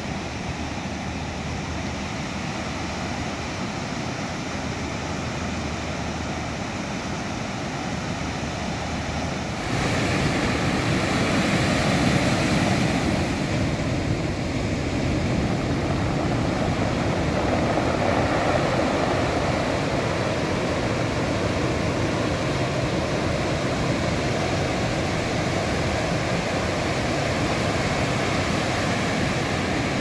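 Steady rush of breaking surf and whitewater, with a low rumble underneath. About ten seconds in it becomes louder and fuller.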